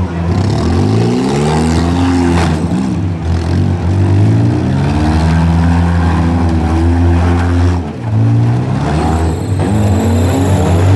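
Several four-cylinder compact car engines revving up and down at once, their pitches overlapping and rising and falling as the cars accelerate and back off.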